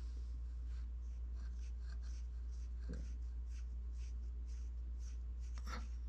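A fine paintbrush stroking paint along the barrel of a small sculpted model rifle: soft, scratchy strokes, two or three a second, with a faint knock or two. A steady low hum runs underneath.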